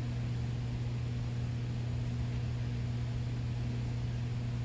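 Steady low hum with an even hiss behind it, with no other sound: the constant background noise of the room or recording.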